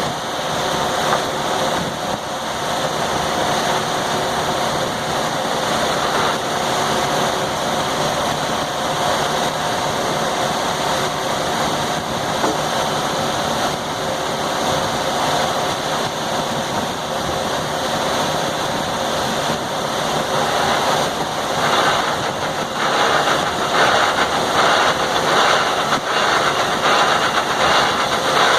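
Sawmill running steadily with a constant hum, turning louder and rougher for the last seven seconds or so.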